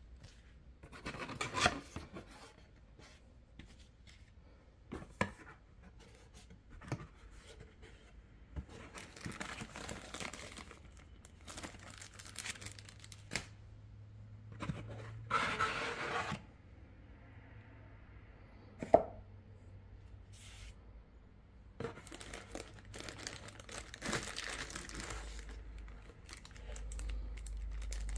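Cardboard packaging being opened by hand: irregular bursts of tearing, scraping and rustling of cardboard and moulded pulp, with a few sharp knocks, the loudest about two-thirds of the way through.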